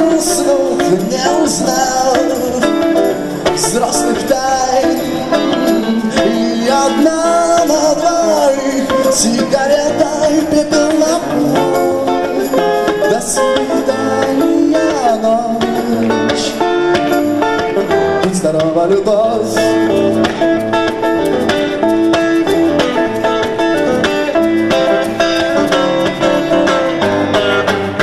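Live rock band music with an electric guitar to the fore and a man singing at the microphone at times.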